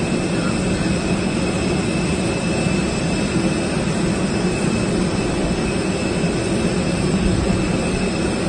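Steady jet-turbine noise from a parked jet airliner, a constant rumble with a thin high whine.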